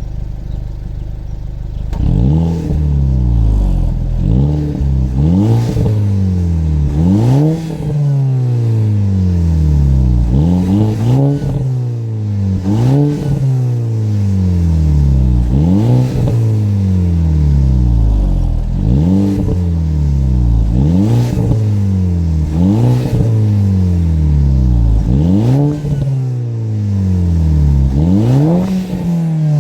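Volkswagen Golf Mk5 GTI's turbocharged 2.0-litre four-cylinder on its factory exhaust, idling briefly and then being revved again and again. Each time the revs shoot up quickly and fall back more slowly, about every one to two seconds.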